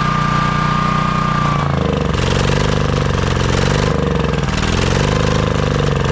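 Honda EB3800X generator's 8 hp single-cylinder GX240 engine running on choke, its speed wavering up and down. It will only run on choke, a sign of its badly fouled carburetor.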